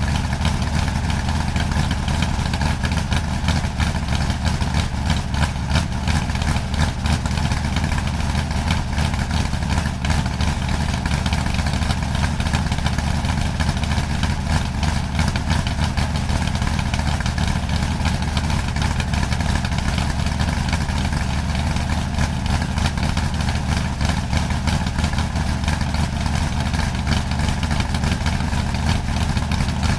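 A vehicle engine idling steadily, with a rapid, even run of firing pulses and a strong low hum that doesn't change.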